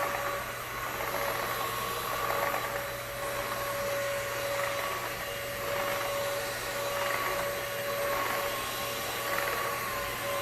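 Aposen H120 cordless stick vacuum running steadily in boost mode, its motor giving a steady whine over the rush of airflow.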